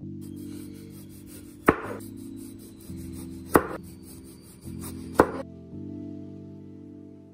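Chef's knife slicing through a ripe tomato, three cuts, each ending in a sharp knock of the blade on the cutting board. Soft background music plays underneath.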